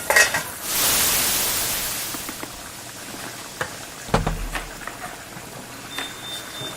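Restaurant kitchen ambience: a loud sizzling hiss from frying starts about half a second in and fades over a couple of seconds, amid small clinks of utensils and dishes. A low knock comes about four seconds in, and a thin high ring near the end.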